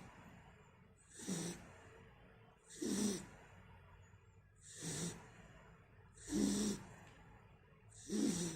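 Snoring: five steady snores about every one and a half to two seconds, each a low pitched snore with a breathy hiss, with quiet breathing between them.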